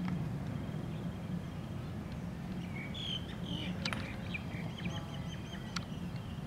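Two sharp knocks about four and six seconds in, a wooden gateball stick striking the ball, over a steady low hum, with birds chirping just before the first knock.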